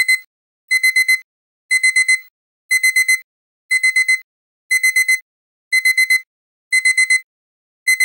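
Digital alarm-clock beeping: a quick cluster of high beeps repeated about once a second, over and over. It is the alarm signalling that the countdown has finished.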